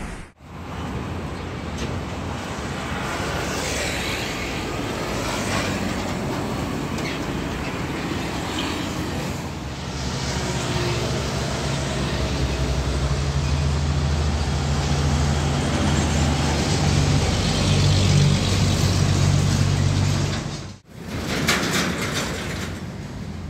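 Roadside traffic with heavy diesel trucks passing close. A deep, steady engine drone grows louder through the middle and peaks near the end of a long stretch, then cuts off abruptly to another approaching truck.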